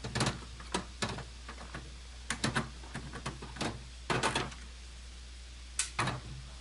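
Irregular clicks and light knocks of a screwdriver and screws against a desktop computer's metal case as the motherboard screws are taken out, some single and some in quick little clusters.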